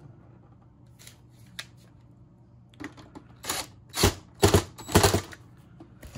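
Cordless DeWalt driver running in about four short, loud bursts in the second half, tightening screws on a wiring terminal block. A few faint clicks of handling come before.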